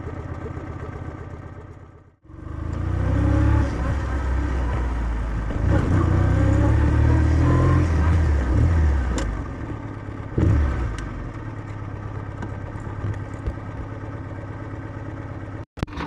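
Kawasaki W650's air-cooled parallel-twin engine through its stock exhaust, running under load for several seconds with a brief rev about ten seconds in, then settling to a steadier, quieter run like an idle. The sound drops out briefly about two seconds in and again near the end.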